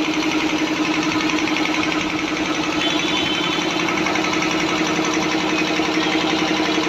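3 hp three-phase heavy-duty air compressor running steadily, with a fast, even pulsing beat over a steady hum.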